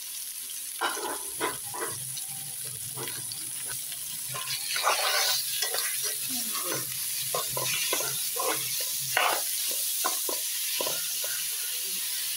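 Minced chicken and chopped onions sizzling in hot oil in a steel pan. A metal spoon scrapes and clinks against the pan in short, irregular strokes as the mixture is stirred.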